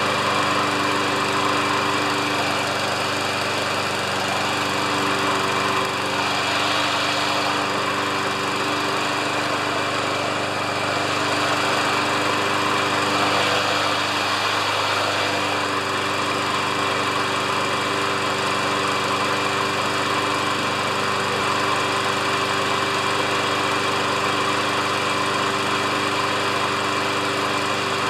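Single-cylinder four-stroke Briggs & Stratton Quantum engine on a Craftsman Platinum push mower running steadily at speed, almost running right after having been clogged with oil. Its note wavers briefly around the middle as the mower is tipped back on its rear wheels.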